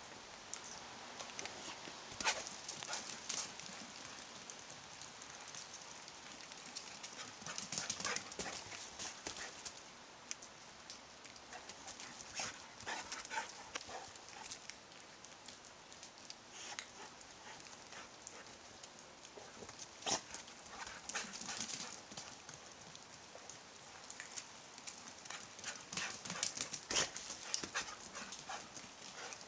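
A worked-up dog romping about, its paws scrabbling and knocking in bursts of clicks and thumps.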